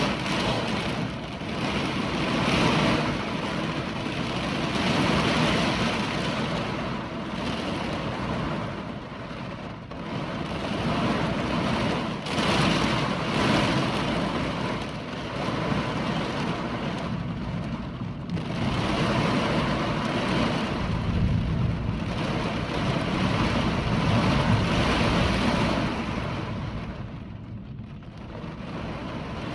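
Hurricane wind blowing hard in gusts, a rushing noise that swells and eases every few seconds.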